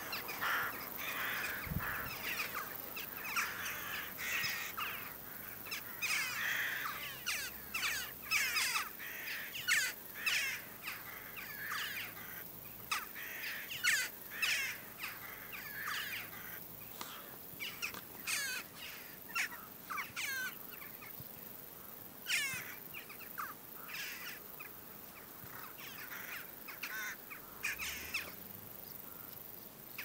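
A flock of jackdaws calling: many short calls overlapping, densest in the first half and thinning out toward the end.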